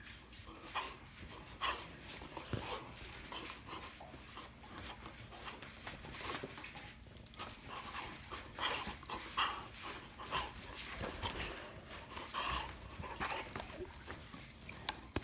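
Boxer dog panting in short, irregular bursts while tugging on a rubber ring toy in a game of tug-of-war.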